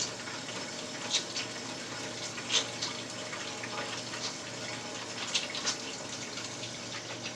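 Kitchen tap running steadily into a sink as hands are washed under it, with a few splashes along the way.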